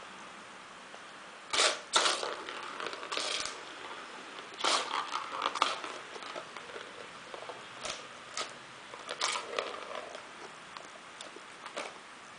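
Kittens at play with a plastic ball-track toy: a series of irregular clatters and knocks as the ball rattles in its track and paws scrabble on the laminate floor, the loudest about a second and a half in.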